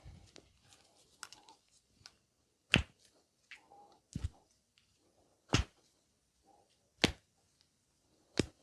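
Massage strokes of the hands slapping on the body, five sharp smacks about a second and a half apart, with softer taps and rubbing between.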